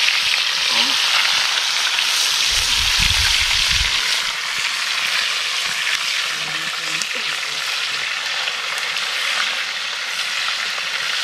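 Fish pieces frying in hot oil in a large pan, a steady sizzle that is a little louder for the first few seconds. A brief low rumble comes about three seconds in.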